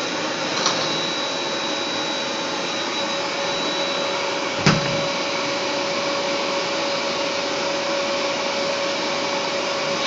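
Vacuum cleaner running steadily with a constant whine, and a single sharp knock about halfway through.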